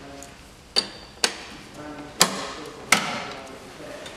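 Four sharp metallic clinks of hand tools against engine fittings, unevenly spaced, each with a brief ring.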